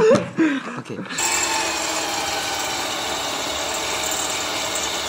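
Cordless drill running steadily under load, boring a rosette-weld hole through a steel frame tube. It starts about a second in, after a brief voice.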